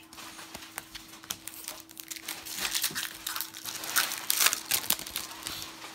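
Crinkling and tearing of a foil baseball card pack wrapper being opened and handled, loudest from about two to five seconds in, over a faint steady hum.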